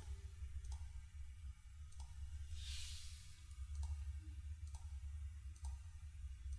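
Computer mouse clicking, about six single clicks roughly a second apart, over a low steady hum, with a brief soft hiss about three seconds in.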